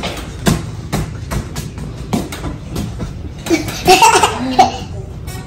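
A small child laughing and squealing, loudest about four seconds in, over a string of short thumps and knocks.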